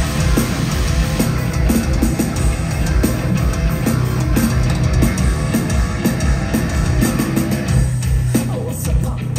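A heavy metal band playing live and loud, with guitar and drums.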